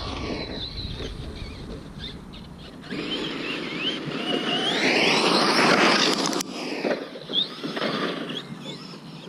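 Traxxas Slash RC truck's electric motor whining, its pitch rising and falling several times as the truck is driven over dirt.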